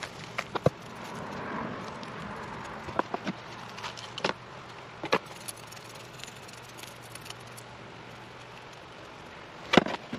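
Succulents being pulled out of small plastic nursery pots and handled: scattered light clicks and taps of plastic, with a soft rustle of soil, over a low steady hum. The loudest tap comes near the end.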